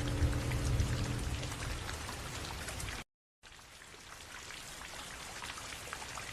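Steady rain falling, a dense hiss full of small droplet pattering. A little after three seconds in the sound cuts out completely for a moment, then returns softer and gradually grows louder.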